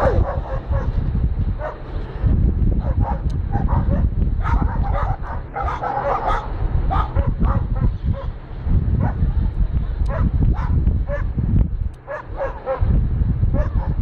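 A dog barking over and over, short sharp barks in quick runs, at bears close by: defensive alarm barking. A constant low rumble runs underneath.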